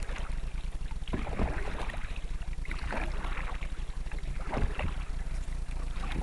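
Canoe paddles dipping and pulling through the water, with a splash every second or two, over a steady low wind rumble on the microphone.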